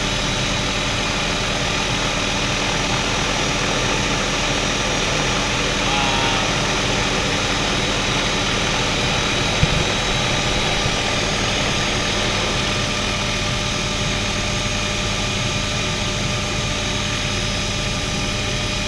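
Helicopter's turbine and rotor running steadily in cruise flight, heard from inside the open doors-off cabin. A single brief click comes near the middle.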